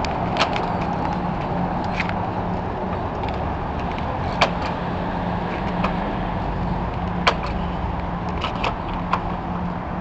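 Steady outdoor city background of traffic noise with a constant low hum, broken by scattered sharp clicks and taps.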